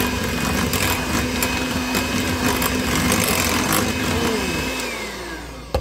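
Electric hand mixer running steadily as its beaters work pumpkin into the batter, then switched off about four seconds in, its whine falling in pitch as the motor winds down.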